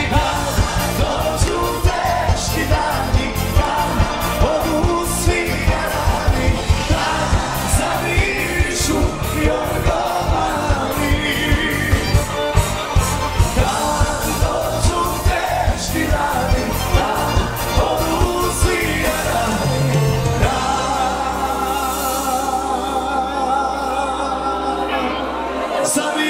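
Party band music with singing over a steady drum beat. About twenty seconds in the drums drop out and held, wavering notes carry on.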